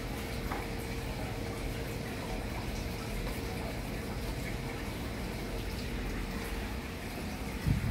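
Steady bubbling and trickling of a home aquarium's air stone and water, with a faint steady hum underneath. A low thump near the end.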